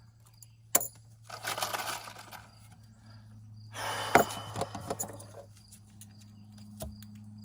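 Wood and tools being handled: a sharp knock, then two spells of scraping and clattering with small knocks, over a steady low hum.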